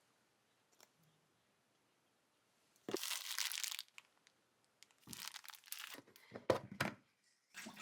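Tearing and crinkling by hand: one longer tear about three seconds in, then a run of shorter tears and sharp crackles a couple of seconds later.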